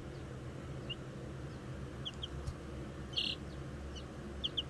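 Two-week-old chicks peeping: a handful of short high peeps, some in quick pairs, over a low steady hum.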